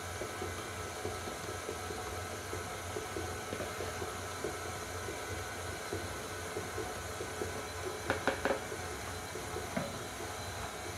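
Electric stand mixer running steadily at a low speed, its beater working a thick batter of margarine, flour and rolled oats. About eight seconds in there are a few quick knocks.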